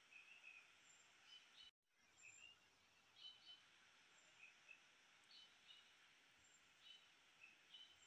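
Faint, short high chirps of small birds, repeating every second or so over a steady hiss, with the sound cutting out completely for a moment about two seconds in.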